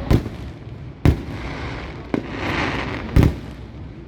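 Category 4 professional display fireworks: three loud shell bursts, the first two about a second apart and the third two seconds later, with a hissing crackle of effects between the second and third.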